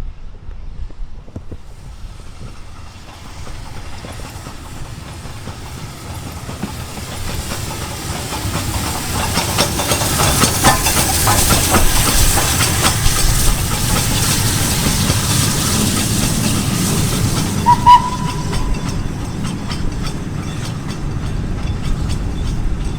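A train passing at speed. Its noise builds over several seconds and is loudest about ten to thirteen seconds in, with a fast clatter of wheels over the rails and a strong hiss, then eases off. A brief sharp high note sounds about eighteen seconds in.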